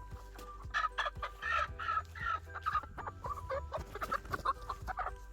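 Hens clucking: a quick series of short calls starting about a second in and carrying on.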